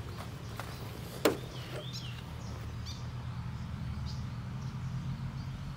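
Birds chirping a few times, short curving calls, over a steady low hum, with a single sharp click about a second in.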